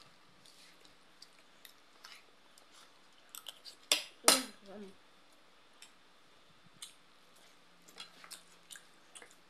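Eating at a table: scattered small clicks of a spoon and plate and mouth noises of chewing, with two louder sharp sounds close together about four seconds in.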